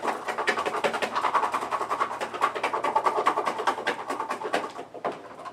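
Garlic cloves rattling fast inside a small plastic Tupperware container as it is shaken hard to knock off their papery skins. The rattle dies away about five seconds in.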